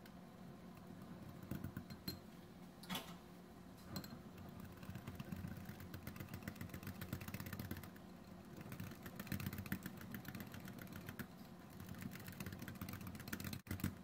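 Wire whisk beating a thick mayonnaise, crema and lime sauce in a glass bowl: a fast, even run of clicking from the wires against the bowl, with a few sharper knocks in the first few seconds.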